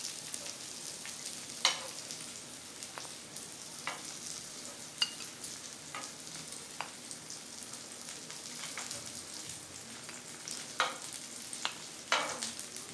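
Paneer cubes shallow-frying in oil, with a steady soft sizzle on a low flame. Sharp clicks of a utensil against the pan come about nine times, the loudest near the end.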